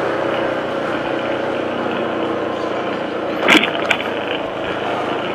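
Motor scooter's small engine running steadily as it rides, with a brief sharp sound about three and a half seconds in and a click just after.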